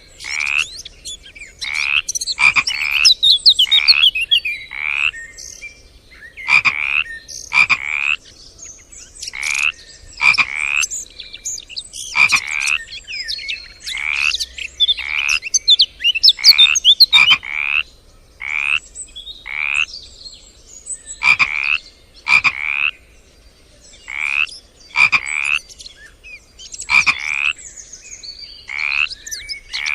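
A chorus of frogs calling: short repeated calls, about one or two a second, with higher trilling calls overlapping in places.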